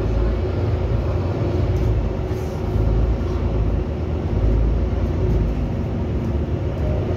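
City bus on the move, heard from inside the passenger cabin: a steady low rumble of engine and road noise with a faint steady hum above it.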